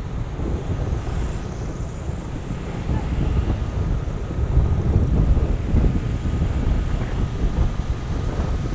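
Wind buffeting the microphone: an uneven low rumble with no distinct events, as from riding through moving air.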